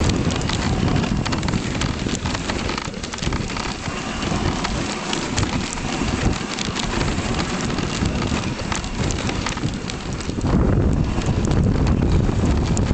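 Dog sled moving over packed snow behind a running husky team: a steady hiss and crackle of runners and paws on the snow, growing louder about ten seconds in.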